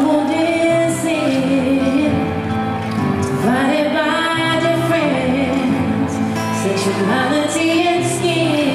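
A woman singing long held notes that swoop up and down, over sustained chords on a Yamaha piano.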